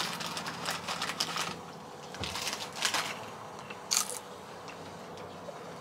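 A plastic potato chip bag (Sabritas) crinkling in bursts as chips are taken out, then a crisp crunch of a potato chip being bitten about four seconds in.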